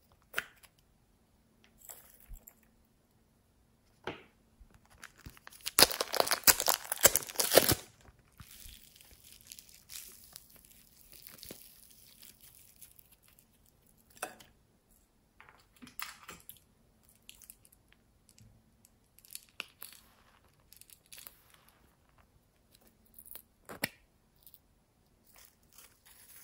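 Hands working slime and clay toppings in a glass bowl: a loud crackling, tearing stretch about six seconds in that lasts about two seconds, then softer rustling and scattered small clicks and taps.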